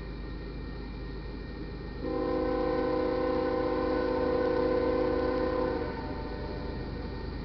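Horn of a GE AC45CCTE diesel locomotive, UP 5438, sounding one long, steady chord about two seconds in and lasting about four seconds before cutting off, blown for the grade crossing as the train approaches.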